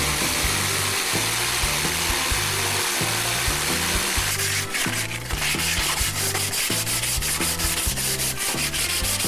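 Electric jigsaw cutting a plywood board, a continuous rasping saw noise for the first four seconds or so. It then gives way to hand sanding of the cut edge, quick even back-and-forth strokes.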